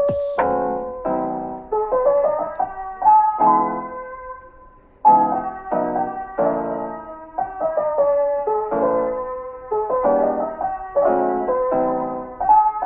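Background piano music: soft, repeated chords under a simple melody, dying away just before five seconds in and then starting again.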